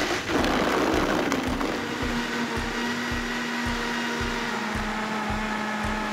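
Vitamix 5200 blender running, churning strawberries and milk. A coarse grinding churn over the first second or so settles into a steady, even whir as the mix turns smooth.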